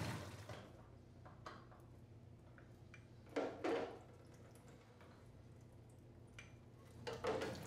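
Faint clicks and handling of the plastic spigot parts as they come off a U431A frozen-dessert freezer, with a short clatter about three and a half seconds in.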